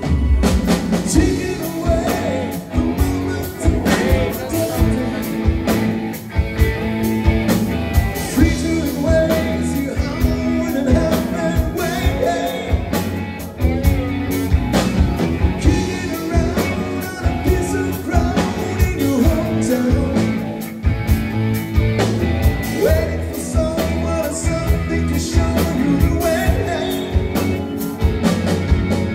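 Live band playing a song through a PA, with singing over drums and electric guitar and a steady beat.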